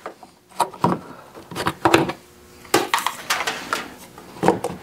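Hard plastic fuse-box cover in a car's engine bay being set back on and pressed down into place: a run of sharp plastic clicks and knocks in several small clusters.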